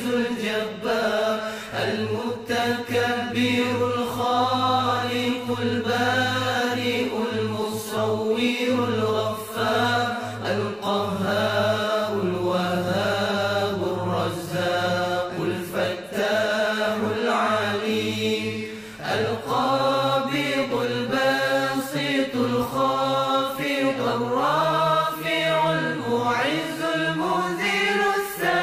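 Chanted vocal music: a single voice sings a winding, ornamented line over a steady low drone. The drone shifts higher after a brief dip about two-thirds of the way through.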